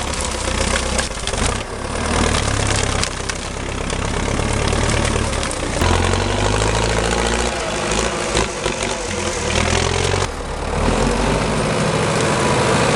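Engine of a piece of machinery running, its pitch rising and falling as the load changes, with an abrupt change in the sound about ten seconds in.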